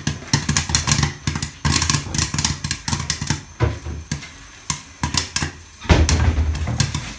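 Caramel popcorn kernels popping in butter and sugar in a lidded wok, a dense rattle of pops against the pan and glass lid that thins to scattered pops after about three seconds. A low rumble runs underneath and swells louder about six seconds in.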